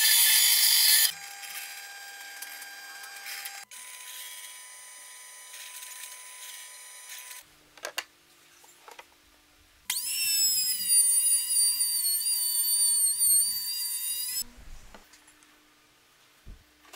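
Bandsaw cutting through plywood for about the first second. Then a quieter steady machine hum for several seconds. About ten seconds in, a table-mounted circular saw whines loudly through plywood for about four and a half seconds, with a wavering pitch, then stops and leaves a few light clicks.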